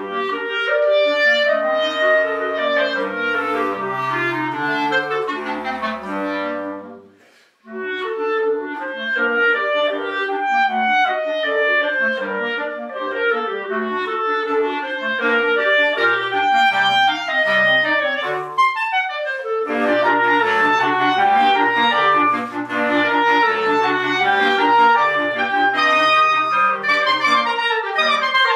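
Clarinet quartet with a bass clarinet playing a classical piece: several clarinet lines moving over a bass-clarinet bass line. The music breaks off briefly about seven seconds in, then resumes, with a quick falling run of notes later on.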